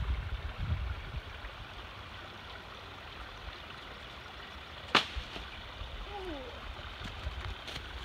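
Steady hiss of running stream water, with a sharp click about five seconds in and a short falling call about a second later.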